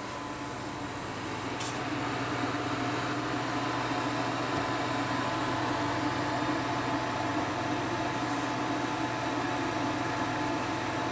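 Steady low hum and hiss in a kitchen, with a pan of sauce boiling on the stove on high heat; the sound grows a little louder about two seconds in.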